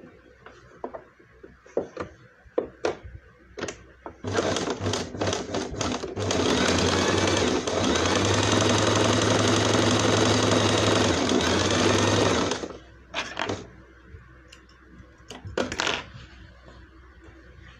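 Domestic electric sewing machine stitching. It starts and stops in a few short runs, then sews steadily for about six seconds and stops. Light clicks and taps of the fabric and machine being handled come before and after.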